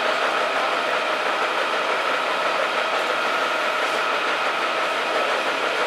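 Firefighting equipment running steadily at a car fire: an even rushing noise with a constant whine through it.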